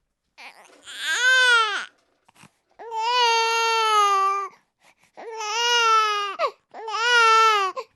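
Infant crying: four wailing cries, each one to two seconds long, with short breaks for breath between them, the first rising then falling in pitch.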